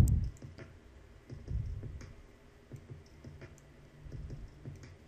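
Scattered light clicks from a computer mouse and keyboard as a code is selected and copied on screen, with a few soft low thumps.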